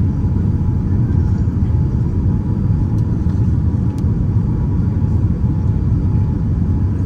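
Steady low rumble of airliner cabin noise inside a Boeing 787-9, with a faint steady hum and two light clicks about three and four seconds in.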